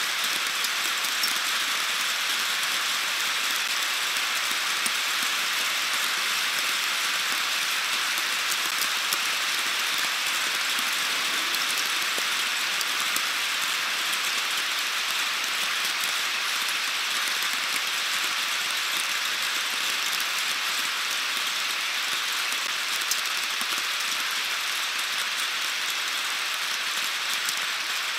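Heavy rain falling steadily in a thunderstorm: a constant hiss with scattered sharp ticks of drops striking close by.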